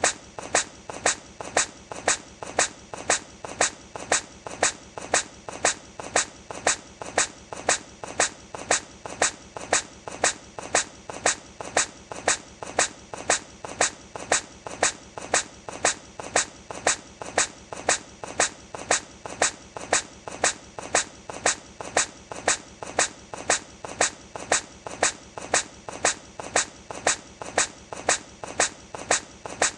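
A hedgehog sneezing over and over, short sharp sneezes repeating at an even pace of about one and a half a second, each with a faint lead-in before the main sneeze.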